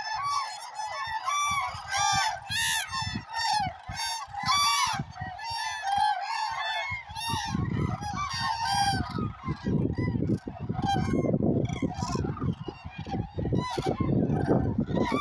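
A large flock of common cranes calling, many loud overlapping calls at once, with a low rumble joining in from about halfway through.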